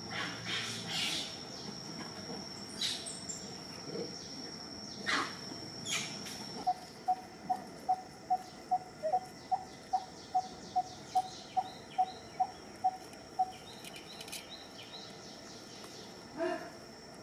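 A bird repeating one short, low note about three times a second for several seconds, starting about seven seconds in. Under it a steady high insect whine and scattered short chirps.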